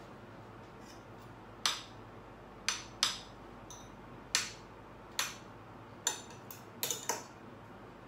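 Spoon and fork clinking against a plate while cutting and scooping food, about nine sharp clinks at irregular intervals, several in quick succession near the end.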